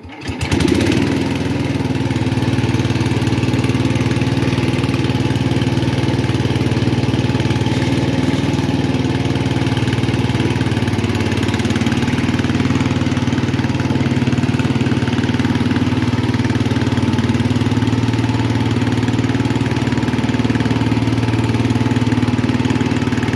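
A 1967 Sears Custom 6 garden tractor's engine starts right at the outset, then runs steadily as the tractor drives off on its freshly repaired transmission.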